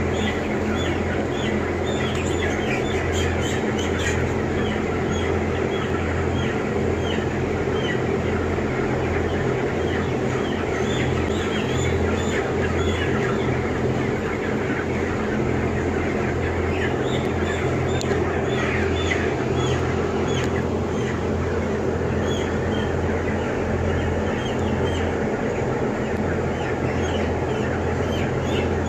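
A crowd of chickens peeping, many short falling high calls overlapping, over a steady low machine hum from the ventilation equipment.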